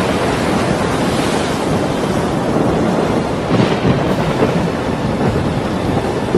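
Storm wind and rough, surging water making a steady, loud rushing noise, with wind buffeting the microphone.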